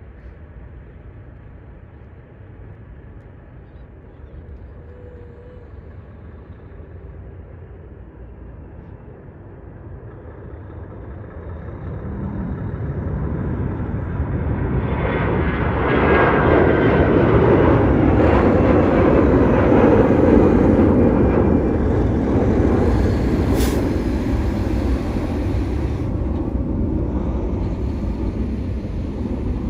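Twin-engine narrowbody jetliner taking off at takeoff thrust. Its jet engine noise starts as a low distant rumble, swells from about a third of the way in as the plane lifts off, and is loudest just past the middle as it climbs past. It then eases slightly as it climbs away.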